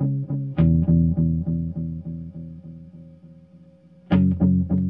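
Electric guitar played through an analog-style oil-can delay pedal: a low chord struck about half a second in, its echoing repeats pulsing about four or five times a second as they fade, then struck again near the end.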